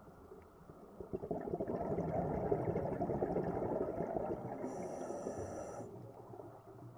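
Scuba diver exhaling through a regulator: a rush of bubbles that swells about a second in and fades after some five seconds, heard through an underwater camera housing, with a thin high whine for about a second near its end.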